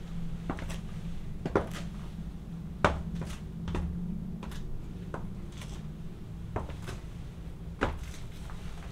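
Stiletto heels of black platform leather boots clicking on a wooden floor in slow, irregular steps, about a dozen sharp clicks, over a faint low hum.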